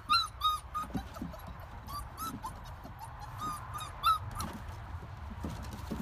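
Puppy whimpering in short, high squeaks: several in quick succession at the start, then more spaced out for the next few seconds.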